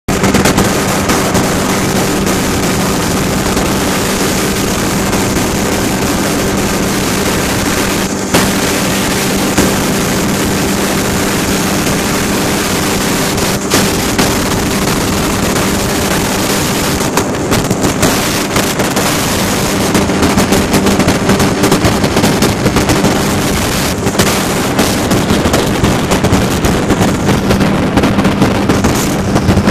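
Ultralight aircraft engine droning steadily in flight, under heavy wind rush on the microphone. From about two-thirds of the way through, the wind buffeting turns choppy and fluttering.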